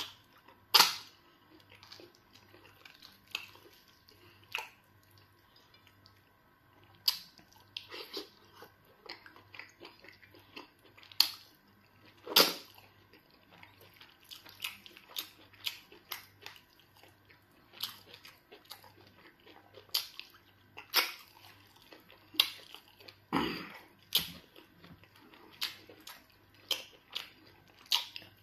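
Close-up mouth sounds of a person eating pounded yam fufu dipped in soup by hand: chewing with irregular, sharp wet clicks and smacks, a few of them much louder than the rest.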